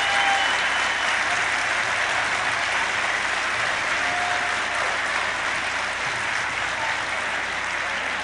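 Audience applauding steadily after a line in a political speech, slowly dying down.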